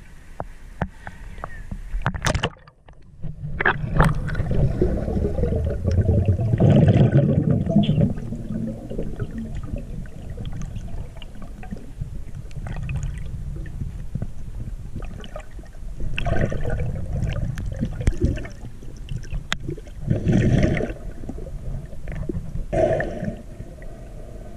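Lake water sloshing and gurgling around a camera at the surface, which goes under about three seconds in. Underwater it gives a muffled low rumble with several louder bursts of bubbling and churning.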